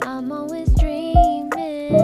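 Background music: a song with a sung melody over sustained chords and a steady drum beat.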